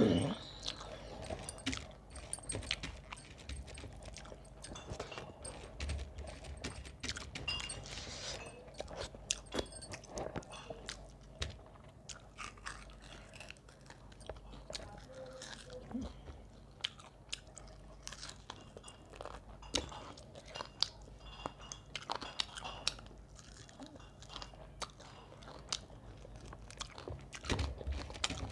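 A person chewing and biting rice and roast chicken eaten by hand, close to a clip-on microphone: wet mouth clicks and small crunches coming irregularly throughout.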